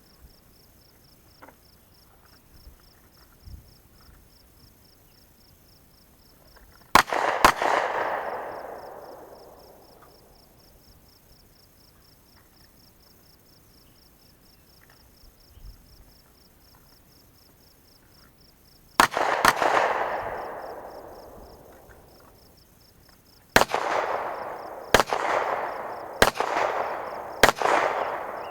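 Gunshots with long echoing tails: two quick shots about seven seconds in, two more about nineteen seconds in, then a steady string of about five shots a second or so apart near the end.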